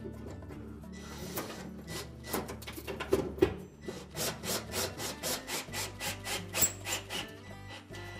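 Hand screwdriver driving a screw into the sheet-metal bracket of an oven's broil element, a repeated scraping of about three twists a second. Soft background music plays underneath.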